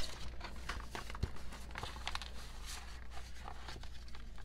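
Paper and card inclusions from a CD album package handled by hand: light rustling with scattered small taps and clicks.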